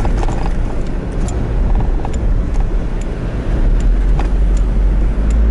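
Car driving along a packed-sand beach: a steady low rumble of tyres and wind, with scattered light ticks.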